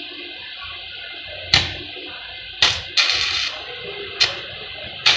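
Stick-welding arc being struck on thin square steel tubing for tack welds: short, sharp crackling bursts about a second and a half in, near three seconds with a brief run of sizzling arc after it, again past four seconds and right at the end, over a steady hiss.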